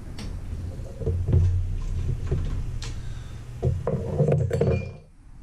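Light metallic clinks and knocks over low handling bumps, from hands working inside the bare sheet-metal case of a Black and Decker toaster oven, among its wiring and controls.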